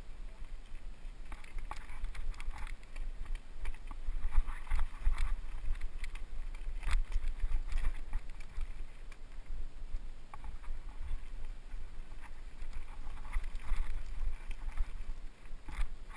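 Mountain bike rolling down a rough, rocky dirt trail, with wind rumble on the helmet-mounted camera's microphone and irregular rattling of the bike over the bumps.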